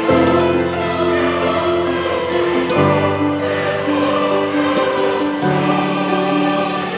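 Background music with choir singing in sustained chords that change every second or two.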